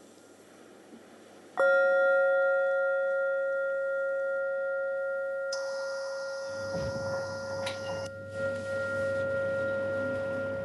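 A singing bowl struck once about a second and a half in, ringing on with a long, slow fade. A few seconds later a higher, brighter ringing and some low rustling join it.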